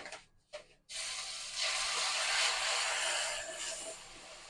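Hot water poured onto ghee-roasted semolina in a hot kadhai, hissing and sizzling. It starts suddenly about a second in, is loudest in the middle, then dies down, with a few light clicks before it.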